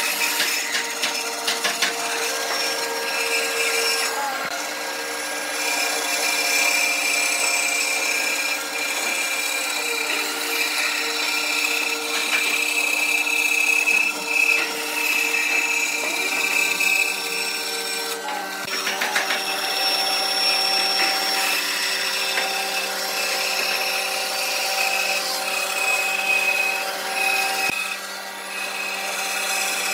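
Vertical bandsaw running and cutting a wooden frame along a curve: a steady motor-and-blade whine with the hiss of the blade in the wood, its pitch shifting a few times as the cut loads the blade.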